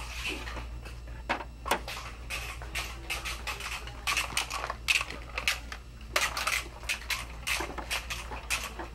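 Irregular clicks, taps and knocks of things being handled, with a few sharper knocks standing out about two and five seconds in, over a faint steady low hum.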